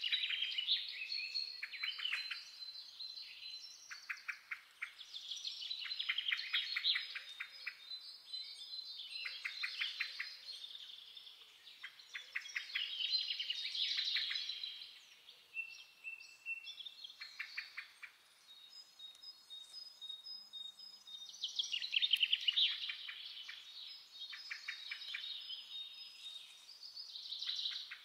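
Small songbirds singing: repeated bursts of fast, rattling trills and twitters every few seconds, with thin high whistled notes between them.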